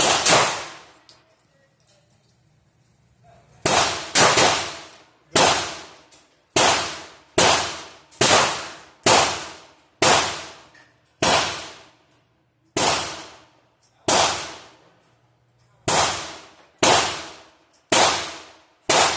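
Handgun fired in a slow string of about fifteen shots, mostly a second or less apart, with a pause of a few seconds after the first shot; each shot has a short ringing tail.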